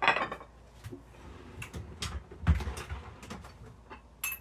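Dishes and kitchenware being handled: scattered knocks and clatters, with one dull thump about halfway and a sharp click near the end.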